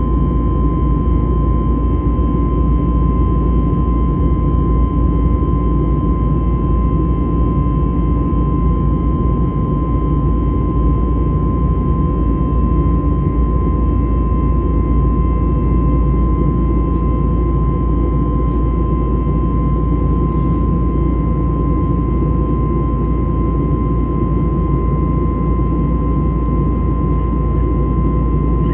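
Cabin noise of an Airbus A321neo climbing on its CFM LEAP-1A engines: a steady engine and airflow rumble with a constant high whine over it. A few faint ticks come through in the middle.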